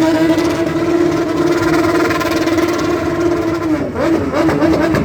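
Stunt motorcycle engine held at steady high revs, then the revs drop and blip unevenly about four seconds in.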